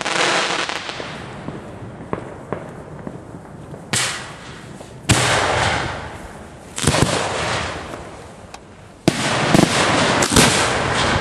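Fireworks shells launching from mortar racks close by: about half a dozen sharp reports, each followed by a rushing hiss that fades over a second or two, the last few coming quickly one after another.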